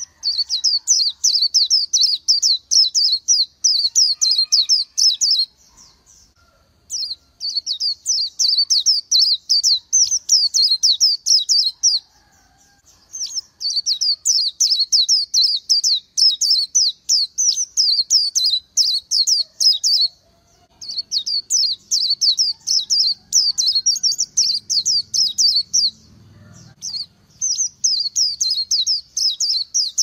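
Oriental white-eye singing: long runs of rapid, high twittering notes in phrases several seconds long, broken by four brief pauses.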